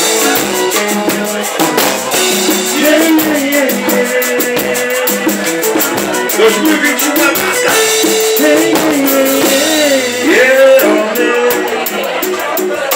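Live band music heard close up at the drum kit: quick, steady hi-hat or cymbal strokes and regular kick-drum beats drive the rhythm, with a sliding melody line over them.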